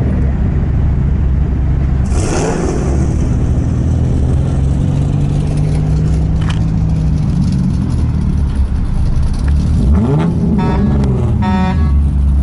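Engine and road noise heard from inside a slowly moving car, a steady low hum. A brief whoosh comes about two seconds in, and near the end a short pitched sound rises and falls.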